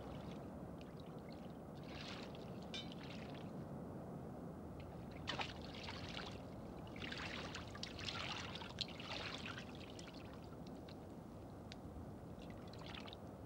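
Shallow water splashing and trickling faintly in short, irregular spurts as people wade and shift an inflatable boat, over a steady low hiss.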